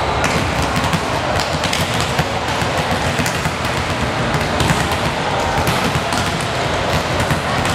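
Volleyballs being hit and bouncing on a sports-hall floor, irregular slaps and thuds over steady hall noise.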